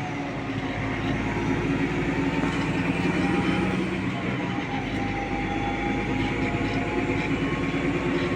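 A heavy diesel engine running steadily, with a steady low pitched hum.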